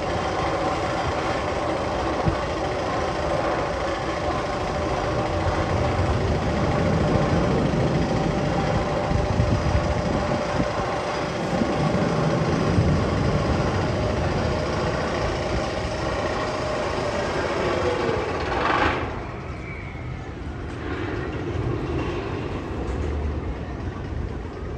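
Magnum XL 200 roller coaster train running on its track: a steady rumble with held wheel tones that drops away sharply about three-quarters of the way through, leaving a quieter rumble.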